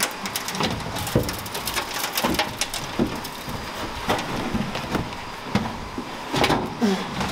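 Dry rat-nest debris and crumbling old padding spilling out of a truck cab as a rotted pad is pulled down, a run of irregular crackles and patters with a few heavier thumps.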